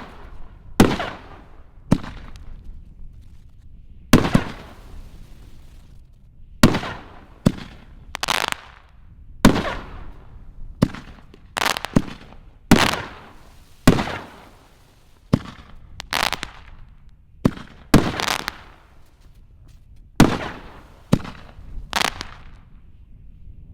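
5-inch Peacock Spider canister firework shells going off in quick succession: a string of sharp booms from shells launching and bursting, about one a second, each trailing off in a fading echo.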